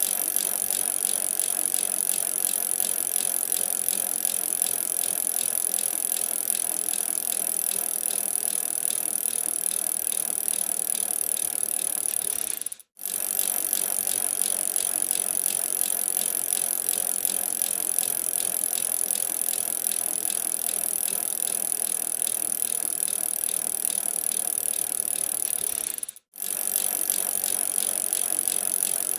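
A bicycle being ridden: a steady rattle with fast clicking that keeps an even level. It cuts out for an instant twice, about 13 seconds apart.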